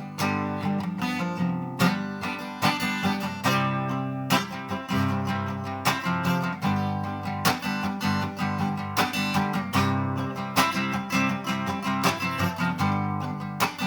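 Instrumental break of a country-style song: acoustic guitar strumming chords in a steady rhythm.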